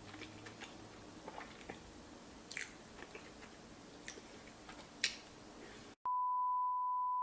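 Faint close-miked chewing and mouth sounds with a few sharp smacks. About six seconds in it cuts off, and a loud, steady single-pitch beep takes over.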